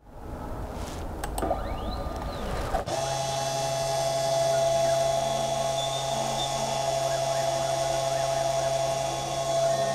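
Spindle motor of a SainSmart Genmitsu 3018 desktop CNC engraver on a test run with no cutter fitted, building up over the first few seconds and then running steadily with a high, even hum from about three seconds in.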